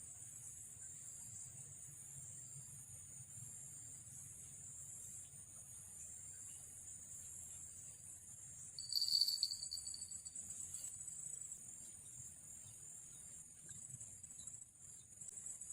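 Steady, pulsing chorus of night insects such as crickets, with a fishing-rod bell jingling once, briefly and louder, about nine seconds in: the bite alarm that signals a fish taking the bait.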